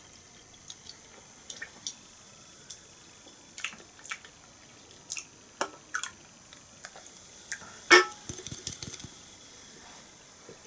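Sipping and tasting beer from a glass: scattered small mouth clicks and lip smacks, with one louder sharp knock about eight seconds in.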